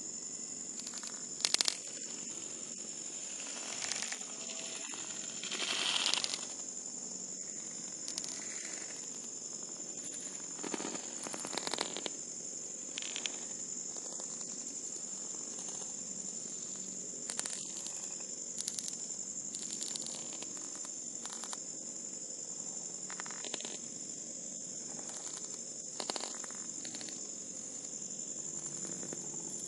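Wood campfire burning with irregular crackles and sharp pops every second or two, the loudest about a second and a half in. Underneath is a steady high-pitched chirring of crickets.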